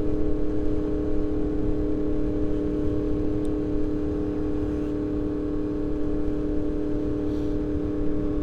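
The crossplane inline-four engine of a 2024 Yamaha MT-10, fitted with a RaceFit Growler X exhaust, running at a steady engine speed while riding, over a low rumble.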